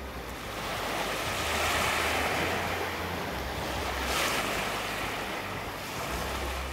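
Small waves of Lake Baikal washing in on a sandy, pebbly beach, the surf swelling about two seconds in and again briefly about four seconds in.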